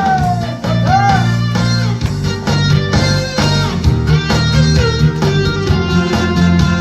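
Instrumental break of a Korean song: a lead guitar line with bent notes over bass and a steady beat, with no singing.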